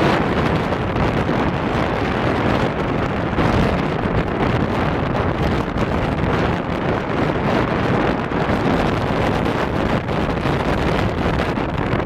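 Strong gusty wind buffeting the microphone: a loud, unbroken rush with a heavy low rumble, rising and falling with the gusts.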